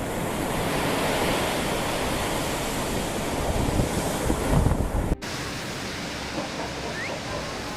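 Wind buffeting the microphone over a rush of surf or water. About five seconds in it cuts off abruptly, and a quieter steady water-like noise follows.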